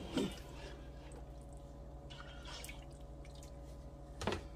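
Pot of chicken broth and dumplings simmering on the stove with faint bubbling and dripping, over a steady low hum. A single knock comes about four seconds in.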